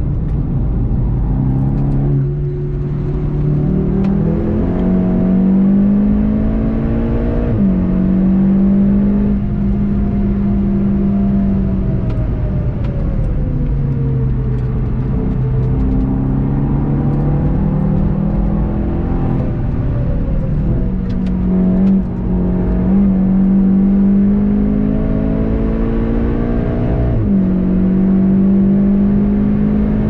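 VW Golf GTI TCR's turbocharged 2.0-litre four-cylinder engine working hard on track, heard from inside the car: the note climbs in pitch under acceleration and drops sharply at each upshift, sags in the middle as the car slows for a corner, then climbs again through the gears. Steady road and tyre noise runs underneath.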